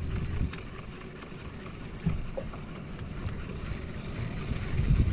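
Wind rumbling on the microphone in a small open boat on the sea, with water lapping at the hull. The rumble swells near the start, about two seconds in, and most strongly near the end.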